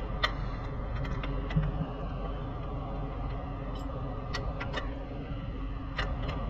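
Socket wrench working a suspension bolt under the car: a few irregular sharp metal clicks over a steady workshop hum.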